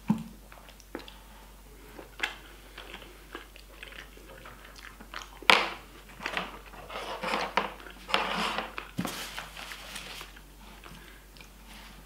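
Close-up chewing and crunching of a mouthful of food, with chopsticks clicking against the plate; irregular short sounds, the loudest about five seconds in and a busier spell of chewing a few seconds later.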